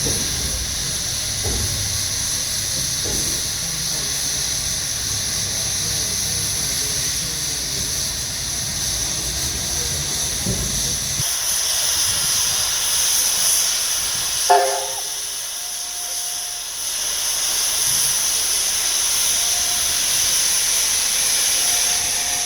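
NSW 35 class steam locomotive 3526 hissing steam steadily. A low rumble underneath stops about halfway, and there is one short sharp pitched sound about two-thirds of the way through.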